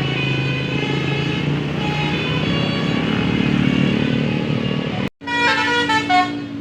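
Tour bus engine running as it passes, then, after a sudden break about five seconds in, a quick run of stepped notes from a 'telolet basuri' melodic bus horn.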